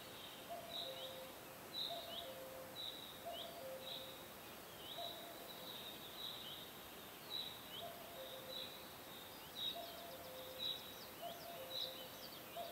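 Birds calling over steady faint ambience: short chirps that dip in pitch, one or two a second, over a lower two-note call, higher then lower, repeating about once a second. The chirping grows quicker and denser about ten seconds in.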